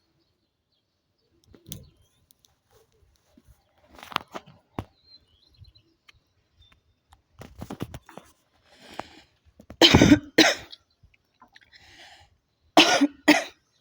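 A woman coughing while smoking a cigarette, a smoker's cough. It comes as two pairs of loud coughs, one about ten seconds in and one near the end, each after a breathy hiss. Small clicks and soft sounds come before them.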